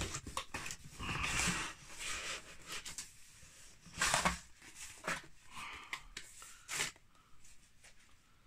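Cardboard packing inserts and a plastic bag rustling and scraping as they are handled in a shipping box, in irregular bursts, the loudest about four seconds in.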